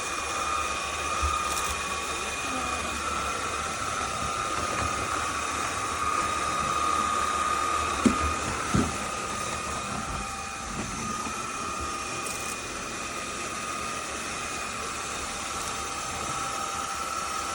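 INTETURE cordless stick vacuum running steadily, a motor whine over a rushing hiss of air. Two brief knocks about halfway through.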